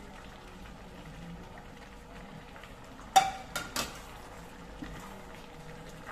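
Chop suey vegetables and chicken simmering in a pot with a faint steady bubbling. About three seconds in, three sharp clinks as the plate and spatula knock against the pot and counter; the first is the loudest and rings briefly.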